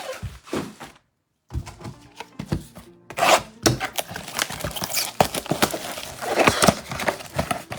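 Cardboard and plastic wrapping tearing and crinkling as a trading-card blaster box and its packs are ripped open, with irregular clicks and rustles of handling. The sound drops out completely for about half a second about a second in.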